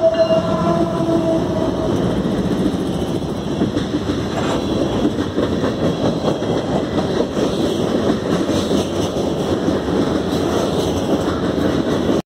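Freight train rolling past at close range: the second diesel locomotive goes by, then a string of freight cars with a steady rumble and rapid clicking of wheels over the rails.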